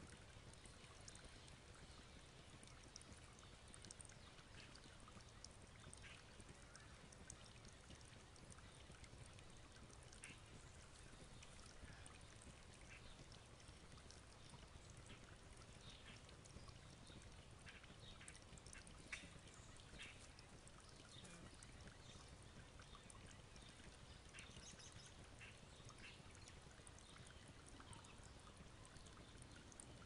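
Near silence: faint backyard ambience with a low rumble and scattered faint, short high ticks and chirps.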